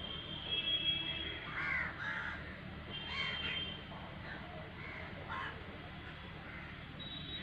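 Birds calling in short calls, a few every second or so, thinning out after about five and a half seconds. A thin, steady high tone sounds for the first second or so and returns near the end.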